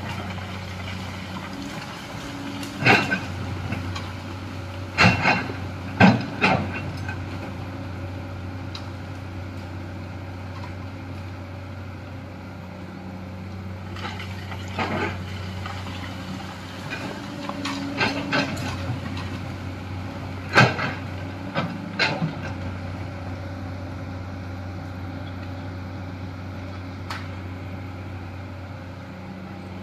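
Komatsu hydraulic excavator's diesel engine running steadily under working load, its note shifting as the hydraulics work. Over it come about a dozen sharp metallic clanks and knocks of the bucket digging earth and rock, in clusters a few seconds in, around the middle and a little after.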